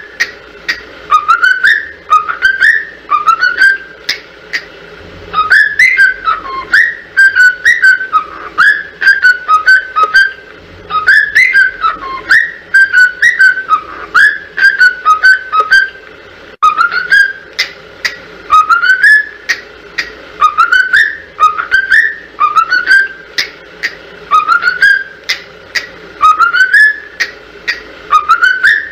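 A whistled tune played for young cockatiels to learn by imitation: short rising whistled phrases repeating about once a second, with a busier run of quick up-and-down notes in the middle.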